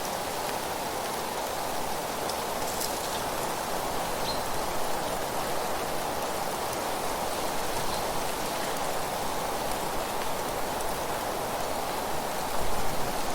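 Steady rushing rustle of wind through leaves, a rain-like hiss, with a few faint short high chirps about three and four seconds in. A brief louder gust of rustling comes near the end.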